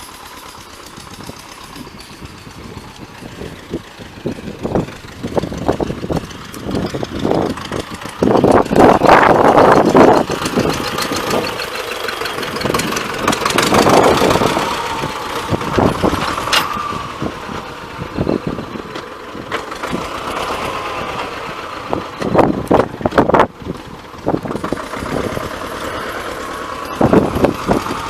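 T-25 tractor's two-cylinder air-cooled diesel running under way, its note swelling and easing, loudest about a third and halfway through, with sharp knocks and clatters several times. The engine has just been repaired after an oil leak.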